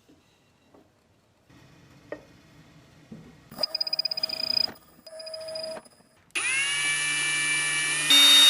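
Small electric power tool running in short bursts: two brief pulsing whines, then a longer steady whine that rises as the motor spins up, gets louder near the end and cuts off.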